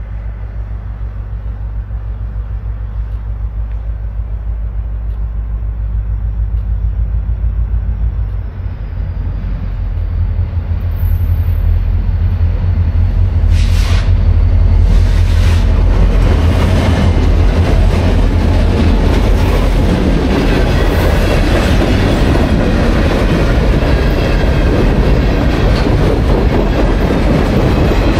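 Diesel freight train passing: the locomotives' engines drone low and steady, growing louder as the train approaches, with the engine note shifting about eight seconds in. Then a loud, steady rumble of the freight cars rolling by, with wheels clicking over rail joints.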